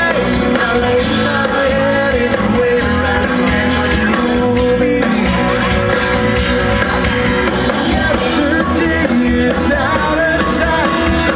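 Live band playing loud amplified music: electric guitars, bass and drums, with a singer's voice over it, heard from within the crowd.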